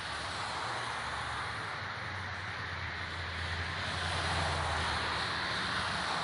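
Road traffic: a steady wash of noise with a vehicle's low engine hum that swells about four seconds in as a car passes.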